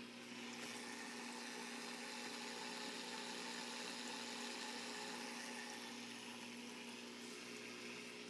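Reef aquarium equipment running: a steady electric hum from the circulation pumps under a hiss of moving water.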